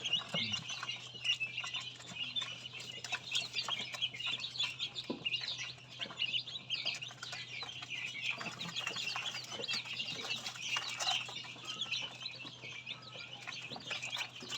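Newly hatched duckling and chicks peeping continuously in a quick, overlapping chatter of high chirps, over a steady low hum.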